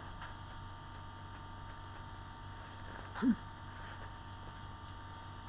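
Steady low electrical hum over room tone, with one brief vocal sound rising in pitch about three seconds in.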